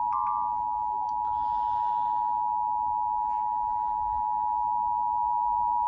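Emergency Alert System two-tone attention signal: two tones of 853 Hz and 960 Hz sounding together, held steady and loud. It is the alert tone that opens an EAS Fire Warning.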